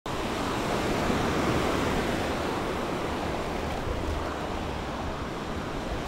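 Small Mediterranean waves breaking and washing up on a sandy beach: a steady rush of surf.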